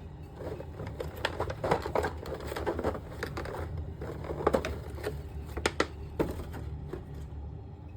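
Cardboard box and plastic packaging being handled and opened: scattered rustles, crinkles and light clicks.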